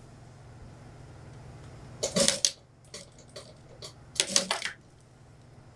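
Industrial lockstitch sewing machine stitching in two short bursts of about half a second, about two and four seconds in, with a few lighter clicks between, over a steady low hum.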